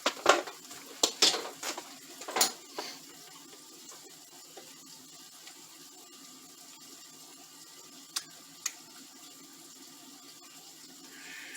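Sharp clicks and knocks of the plastic parts of a replacement extension-cord female end being handled. They come several in quick succession over the first few seconds, then two more short clicks later, over a steady faint background hiss.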